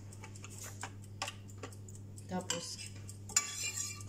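Metal spoon tapping and scraping on an aluminium foil tray as ground meat is spread for a lasagna layer, a handful of light clicks. Near the end a longer scrape and clatter comes as a spoon goes into a glass dish of tomato sauce. A steady low hum runs underneath.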